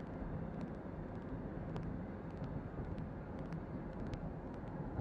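Steady road and engine noise of a car driving, heard from inside the cabin as a low rumble, with faint scattered ticks.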